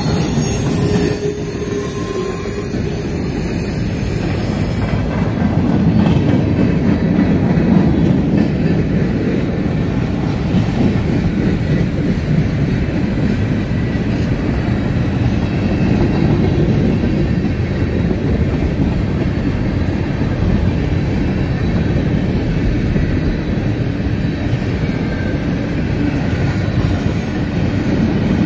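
A CSX freight train's cars rolling past at speed, with a steady rumble of steel wheels on rail. High wheel squeal rings over it for the first few seconds, then dies away.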